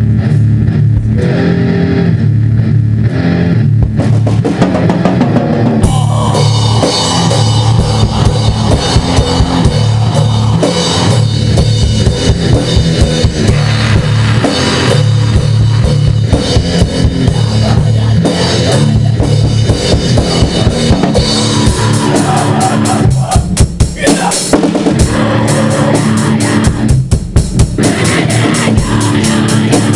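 Heavy metal instrumental with a pounding drum kit and electric guitar. About six seconds in it fills out and gets much brighter.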